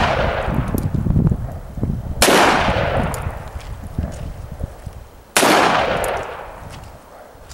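Two shots from a scratch-built single-action revolver, about three seconds apart, each followed by a long fading echo.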